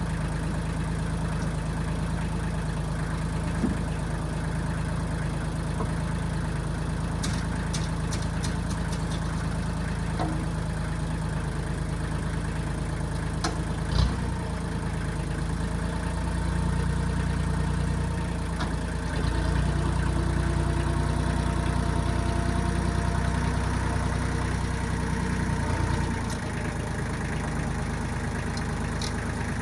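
Diesel engine of a 1995 Kubota backhoe running steadily. It gets louder for a stretch in the second half, as under load, with a sharp knock about halfway through.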